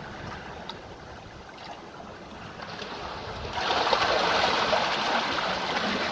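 Sea water washing and splashing at the shore, a soft rush that swells louder about halfway through.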